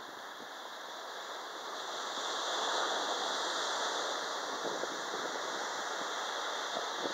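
Surf washing on a sandy beach: a steady hiss that swells about two seconds in, then eases a little.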